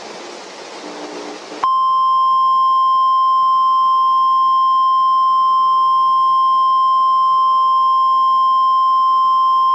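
A hiss, then about two seconds in a single loud, steady high tone starts abruptly and holds: the 1050 Hz warning alarm tone of a NOAA Weather Radio emergency alert, which signals that a warning, here a severe thunderstorm warning, is about to be read.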